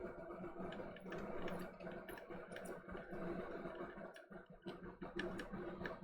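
Small scattered clicks and taps of metal tools on a game controller's circuit board while its stick potentiometers are being desoldered, over a steady low hum.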